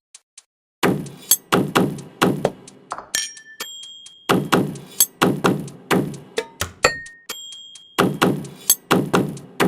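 A rhythmic beat of struck objects starting just under a second in. Each phrase is four heavy thunks followed by short ringing dings, and the phrase repeats about every three and a half seconds.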